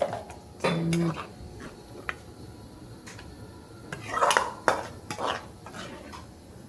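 Metal spoon scraping and clinking against a kadai as cooked chicken curry is scooped out of the pan, in scattered strokes with the loudest scrapes about four seconds in.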